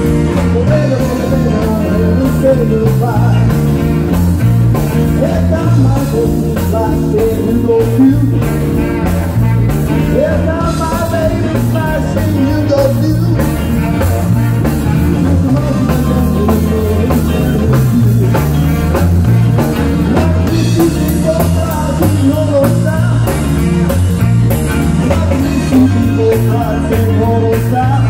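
Live rock-and-roll band playing amplified electric guitars and drum kit with a steady beat.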